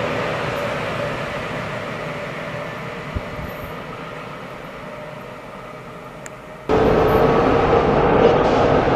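An ÖBB Taurus electric locomotive hauling a passenger train runs away, its rumble and hum fading steadily. About six and a half seconds in the sound jumps abruptly to a louder, closer passage: a Czech Railways class 242 electric locomotive arriving with its train, with a steady hum over the rumble of the wheels.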